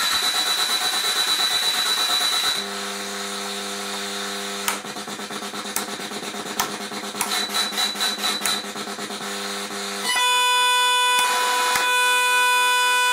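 Handmade noise machine built on the SN76477 sound-generator chip, sending out synthetic noise. First a hiss with a steady high whistle, then about two and a half seconds in a low steady drone with a fast crackling pulse over it, and about ten seconds in a louder steady chord of high tones.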